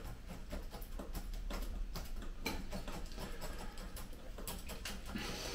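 Many small, irregular clicks and rustles of hands working soil and substrate around a cypress root ball during transplanting into a new pot, with a short scrape near the end.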